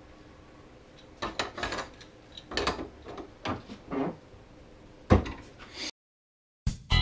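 Metal parts of a snowmobile secondary clutch being handled and knocked against each other and the workbench: about eight irregular clinks and knocks. Near the end the sound cuts out briefly and upbeat guitar music starts.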